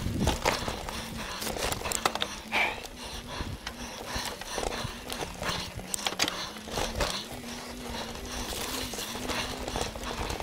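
Mountain bike rolling along a dirt singletrack: tyres running on the dirt, with irregular clicks and knocks as the bike and its handlebar-mounted camera rattle over bumps, over a low wavering hum.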